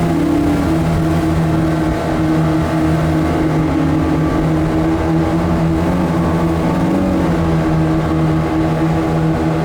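A river boat's engine running steadily under load, its pitch wavering slightly about seven seconds in, over the rushing of the river rapids.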